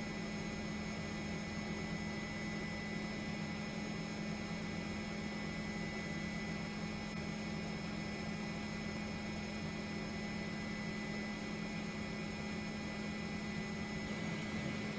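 Steady hiss and hum of a news helicopter's turbine engine, with a few thin, steady high whining tones over it.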